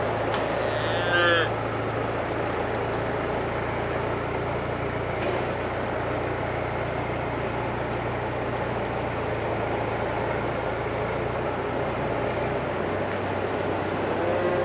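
A calf bawls once with a short, high-pitched moo about a second in, and gives a brief second call near the end, over a steady low hum.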